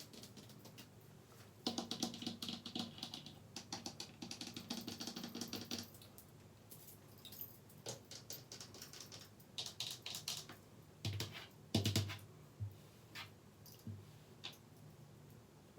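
Fast ASMR tapping and scratching on objects: a dense run of quick clicking taps from about two to six seconds in, then slower scattered taps with a couple of heavier knocks a little before halfway through the second half.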